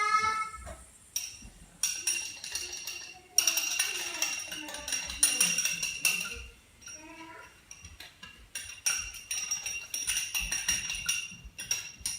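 A metal utensil clinking and scraping against a metal pot or bowl as ingredients for an orange cream are measured in and stirred: repeated sharp clicks with a high ringing after many of them, pausing briefly twice.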